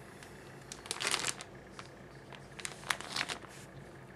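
A plastic bag crinkling in two bursts, about a second in and again around three seconds in, as a GPU water block is taken out of it.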